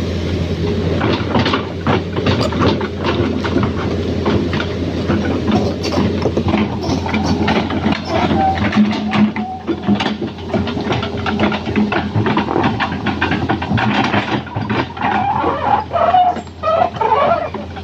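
Excavator running steadily, its diesel engine holding a constant low hum under many short metallic clanks and knocks from the machine at work.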